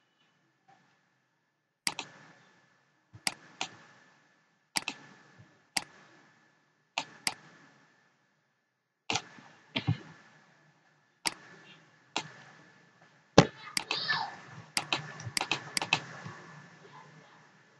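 Computer mouse clicking: single sharp clicks about a second apart, then a quicker run of clicks in the last few seconds, over a faint steady tone.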